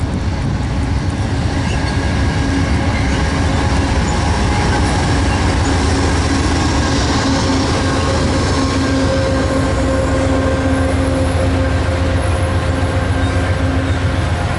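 Amtrak California Zephyr passing at speed: two GE P42DC diesel locomotives go by, then a baggage car and Superliner bilevel passenger cars roll past. The wheels on the rails make a steady loud rumble, with a faint steady whine over it.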